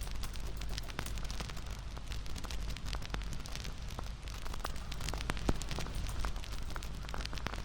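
Bonfire crackling: a steady low rumble of burning wood with frequent sharp snaps and pops, one louder pop about five and a half seconds in.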